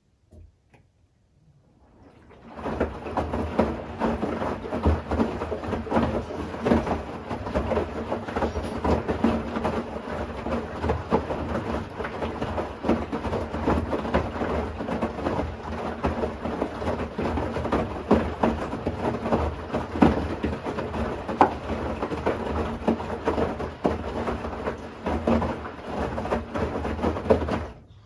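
Bosch Series 6 i-dos front-loading washing machine in its wash phase: the drum turning and tumbling a wet load, with water sloshing and many small splashes and knocks against the door glass. It starts about two seconds in and drops away just before the end.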